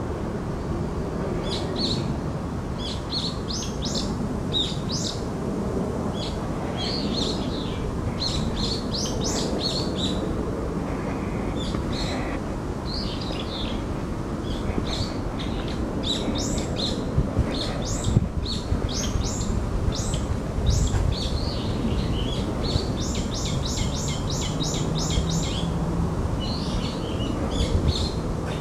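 Birds chirping continually in many quick, high notes over a steady low background rumble, with a low steady hum joining in near the end.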